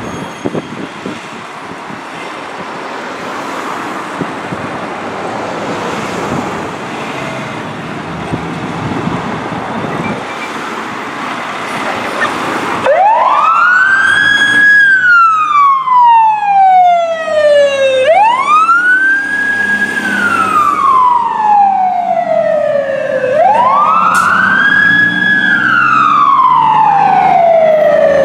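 A fire engine's motor and road noise grow louder as it pulls out. About halfway through, its siren starts a wail that rises quickly and falls slowly, repeating about every five seconds.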